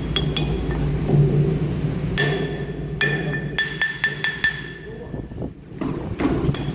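Hammer tapping on the steel boss of a flanged valve cover: a series of sharp metal strikes, each ringing with the same clear tone, coming quickly together in the middle. A steady low machinery hum runs underneath.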